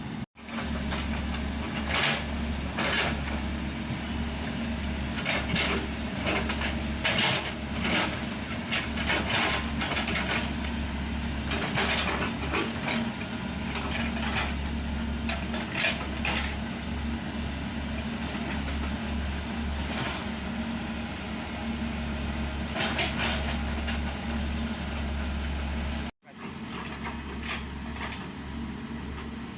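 Excavator's diesel engine running steadily, with scattered knocks and clanks throughout. The sound cuts out abruptly twice, near the start and near the end.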